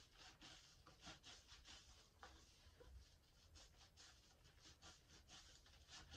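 Faint, quick, repeated squishing and crackling of a foamy sponge lathered with Sal Suds as hands squeeze and knead it, several squishes a second.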